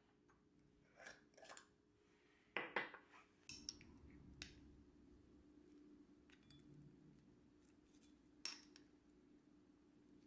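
Quiet clicks and clinks from a metal screw lid on a small glass jar and a butter knife, the loudest cluster about two and a half seconds in. Then faint scraping as the knife spreads marmalade across toast, with a couple of single light clicks.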